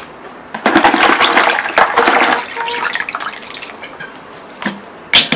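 Water splashing and pouring into a pot, starting about a second in and lasting around two seconds before easing off, as washed ingredients go in with the meat. A short sharp knock near the end.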